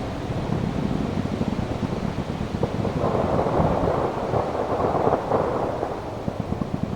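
Fireworks display: a continuous rumble of aerial shell bursts mixed with dense crackling, swelling about three seconds in.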